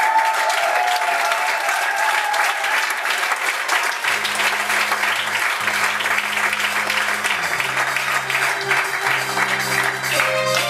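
Audience applauding. About four seconds in, the low held notes of a song's intro begin under the clapping.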